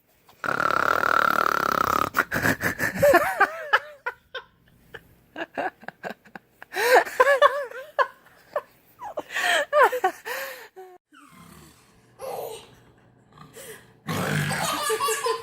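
Baby laughing in short, high-pitched bursts, several times over. Loud breathy noises open and close it.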